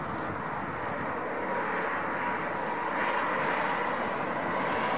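Boeing 777-200LR's twin GE90 turbofans at takeoff thrust during the takeoff roll and rotation. A steady rush of jet noise with a thin whine on top grows louder as the airliner lifts its nose.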